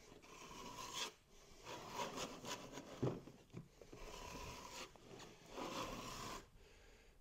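Notched trowel scraping thick MS-polymer flooring adhesive across a subfloor in a series of sweeping strokes, each about a second long, with short pauses between them.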